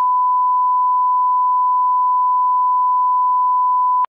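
Steady line-up test tone that goes with SMPTE colour bars: one loud, unbroken pitch that cuts off abruptly at the very end.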